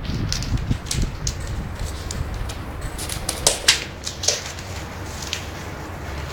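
Bengal kittens play-fighting: scattered light knocks and scratchy clicks of paws and bodies scuffling, with two sharper knocks about three and a half seconds in, over a low steady rumble.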